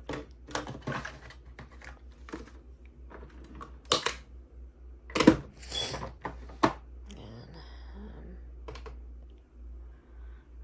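Plastic clicks and knocks of K-cup coffee pods being handled and a Keurig single-serve coffee maker being loaded, with the sharpest knocks about four and five seconds in.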